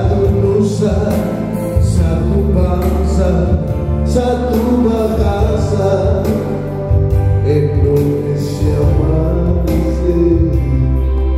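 A man singing into a microphone over musical accompaniment with a heavy bass line.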